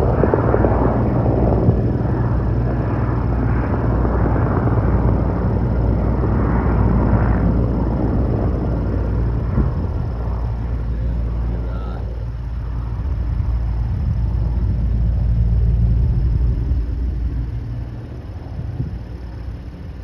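Firefighting helicopter flying close, a loud, steady rotor and engine rumble that eases off near the end as it moves away.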